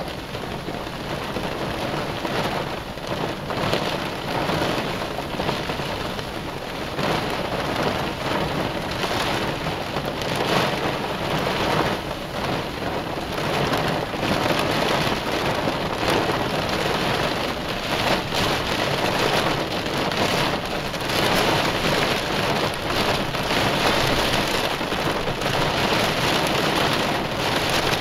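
Heavy rain pelting a car, a dense steady patter of many sharp drop hits, a little heavier in the second half.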